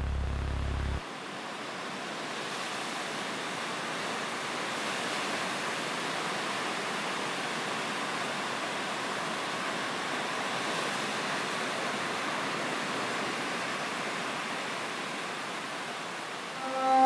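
Ocean surf washing steadily: an even hiss with no breaks, swelling a little after the first few seconds. A low drone cuts off about a second in, and music comes in just before the end.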